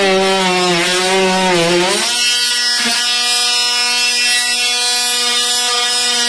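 Cordless oscillating multi-tool (renovator) buzzing as its blade cuts into a painted wooden floor. For about the first two seconds the pitch wavers and sags under the load of the cut, then it settles into a steady, higher buzz as the blade runs free.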